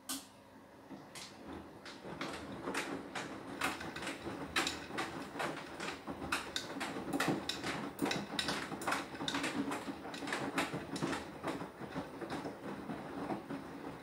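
Beko WTK104121W washing machine starting its drum with a click after a pause, then tumbling the load: irregular knocks and clatter over a rushing noise, building over the first couple of seconds and then steady.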